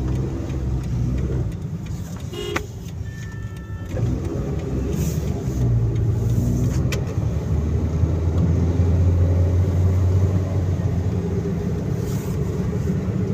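Car engine and tyre noise heard from inside the cabin while driving, with a low drone that builds after a few seconds. A short, steady high two-tone sound comes about three seconds in.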